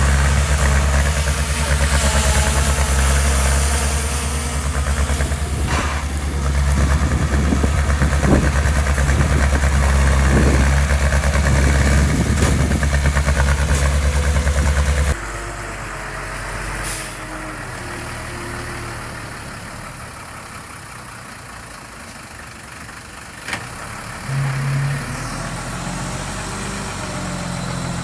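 Heavy construction machinery's diesel engine running with a strong, steady low hum; about halfway through the sound cuts abruptly to a quieter engine running near idle, with a brief click about three-quarters of the way in.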